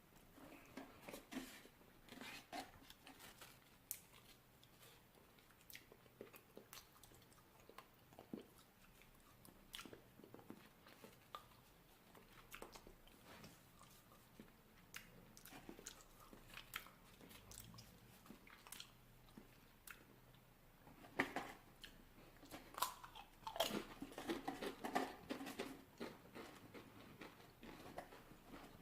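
Near silence in a small room, broken by faint scattered clicks and short rustling or crunching noises, a little busier in the last several seconds.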